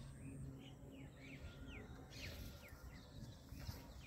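Faint bird chirps: a string of short calls, each dropping quickly in pitch, about two a second, over a steady low hum.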